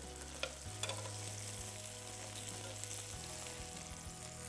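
Burger patty sizzling on the hot plate of an electric contact grill, a steady light hiss. A metal spatula clicks against the grill plate a couple of times near the start as the patty is lifted off.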